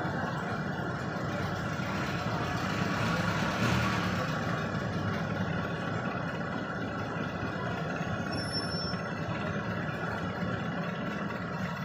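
Street traffic: vehicles passing, louder about three and a half seconds in, then a jeepney's engine idling steadily as it stands at the curb.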